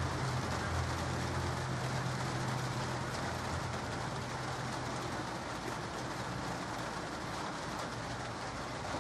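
Light rain falling as a steady, even hiss. A low rumble fades out within the first two seconds.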